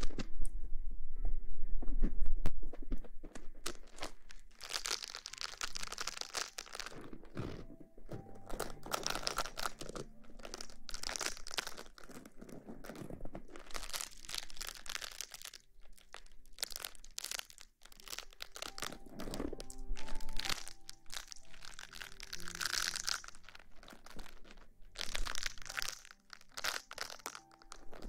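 ASMR rustling: close-miked crinkling and crunching handling noises with many scattered sharp clicks, over soft background music.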